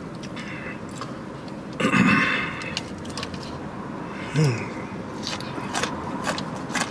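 A person biting into a breaded fried chicken tender, with a loud bite about two seconds in, then chewing with many short, sharp mouth clicks and smacks.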